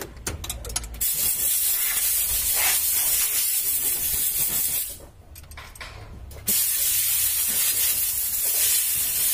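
A steady hiss that drops away for about a second and a half midway, with a few sharp clicks near the start.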